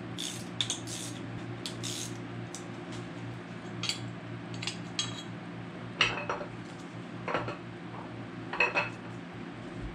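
Metal tools and parts clinking against an iron-block 6.0 LQ4 LS engine as the camshaft is freed and drawn out of the block: scattered sharp clicks and clinks over a steady low hum.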